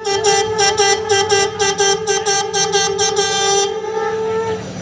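A conch shell (shankh) blown in one long held note, pulsing about four times a second for the first three and a half seconds, then steadier and fading out just before the end.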